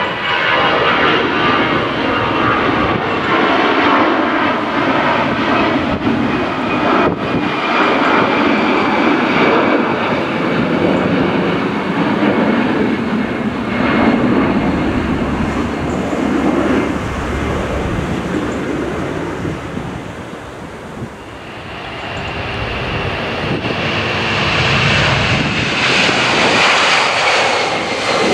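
Jet engines of an Edelweiss Air Airbus A320 at climb power, a steady, loud rumble as the airliner climbs away overhead. After a brief dip about 21 seconds in, a second jet airliner approaching to land grows louder, with a high engine whine.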